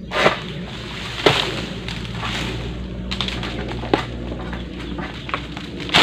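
Egrek, a long-pole palm sickle, hooking and cutting oil palm frond stalks: a few sharp cracks as the blade bites and pulls through, with rustling of dry palm fronds between them.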